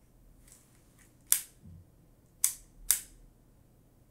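Three sharp mechanical clicks from a compact 35mm film camera being handled with its back open: one, then two more close together about a second later.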